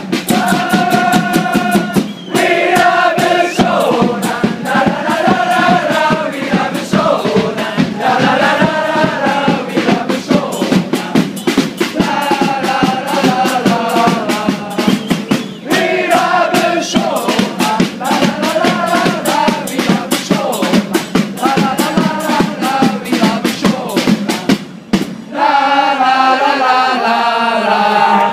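Football supporters singing a chant together over a steady beat of drums and claps. Near the end, a long held note slides downward in pitch.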